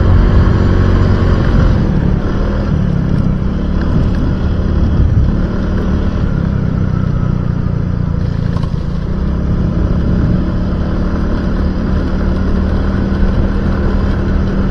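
Motorcycle engine running steadily while riding along, with a steady rushing noise over it.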